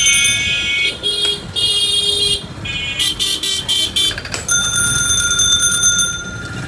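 Vehicle horn honking in several long, loud blasts, with a rapid run of short stuttering toots about three seconds in.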